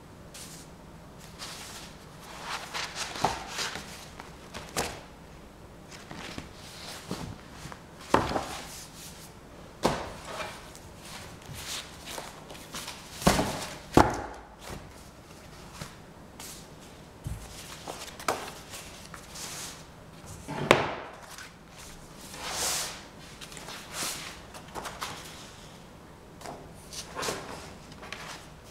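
Irregular knocks, clicks and rustles, roughly one every second or so, with a few sharper knocks along the way; the sharpest comes about two-thirds through.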